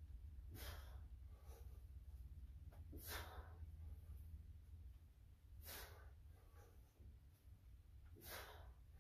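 A man breathing hard while lifting a barbell: four loud, forceful exhales about two and a half seconds apart, each followed by a softer breath, in a steady rhythm with the reps. A steady low hum runs underneath.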